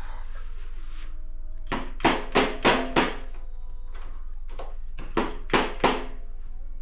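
Sharp metal-on-metal taps, each with a brief ring, in two runs: about six quick taps a second or two in, then about four more a little later.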